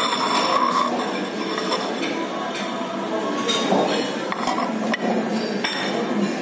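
Cutlery and dishes clinking at a restaurant table: irregular sharp chinks over a steady background din, with a short steady tone in the first second.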